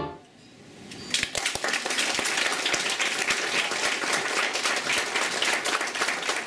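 Audience applauding: after a short lull, dense clapping from many hands starts about a second in and holds steady.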